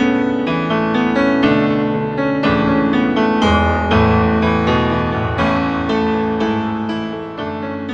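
Instrumental piano music playing a gentle melody of struck notes.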